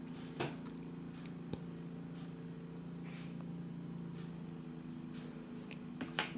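Dog huffing faintly in the background, over a steady low hum that fades out after about four seconds, with a few light clicks.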